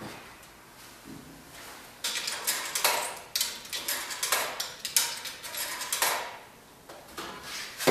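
Coin-operated washer's coin slide being worked by hand: a run of sharp metallic clicks and clatters, several a second, starting about two seconds in and stopping about two seconds before the end.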